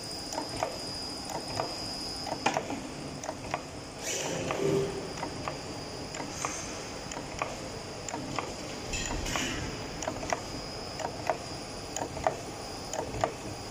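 Automatic dough divider and row-aligning machine running: a steady high whine with a sharp click about once a second as its mechanism cycles.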